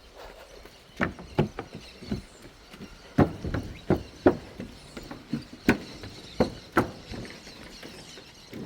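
Running footsteps: a steady series of footfalls, about two to three a second, starting about a second in, with faint birdsong behind.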